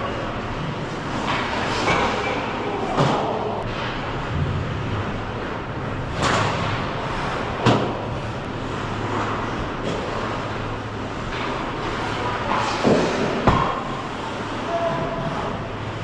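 Ice hockey play heard at ice level: skate blades scraping and hissing on the ice, and several sharp clacks of sticks and puck, the loudest about halfway through and near the end, over a steady rink hum.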